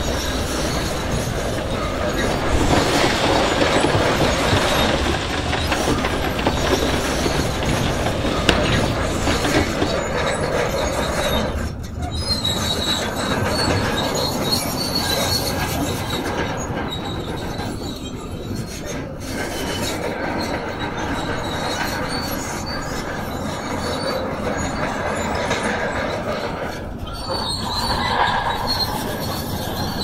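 Shantui DH17C2 crawler bulldozer working: its steel tracks squeal and clank continuously over a diesel engine's rumble.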